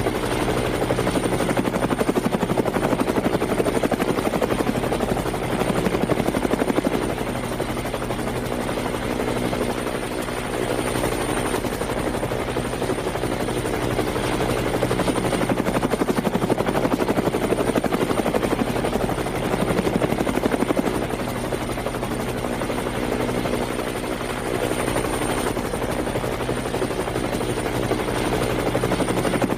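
Quadcopter drone's motors and propellers buzzing steadily, a DJI Phantom 3 Advanced, with a thin high whine above the buzz; the hum swells and eases in loudness every several seconds.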